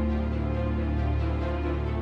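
Background music with sustained, held tones over a deep bass, laid over a storm time-lapse.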